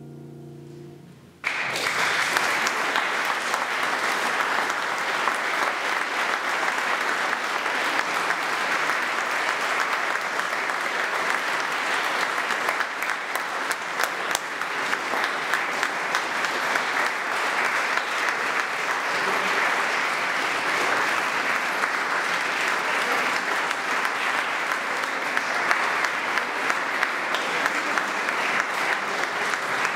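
The last notes of a grand piano fade out, and about a second and a half in an audience bursts into steady, sustained applause in a stone church.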